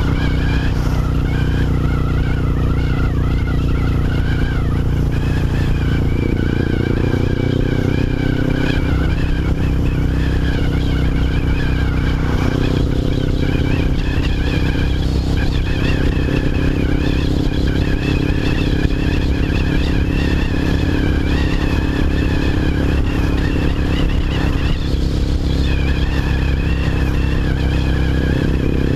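1998 Suzuki GS500's air-cooled parallel-twin engine running at a steady speed through an aftermarket Delkevic 200 mm exhaust, loud.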